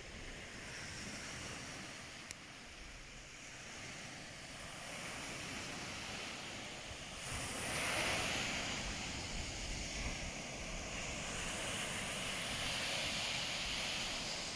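Small waves breaking and washing up a shingle beach, with wind on the microphone; the surf swells loudest about halfway through and again near the end. A single brief click a little after two seconds in.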